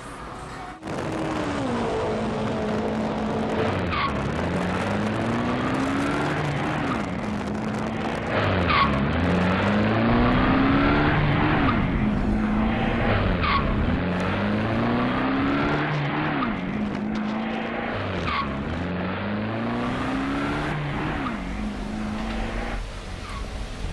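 Car engine revving, its pitch climbing and then dropping back as if shifting up through the gears. This repeats in even cycles about every four to five seconds, with a short sharp sound at each drop, like a race car accelerating.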